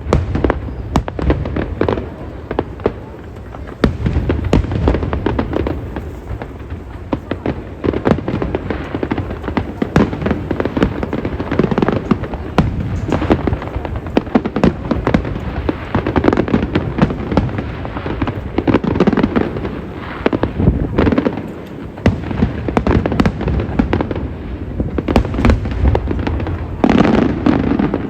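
Aerial fireworks display: a dense, continuous barrage of bangs and crackling.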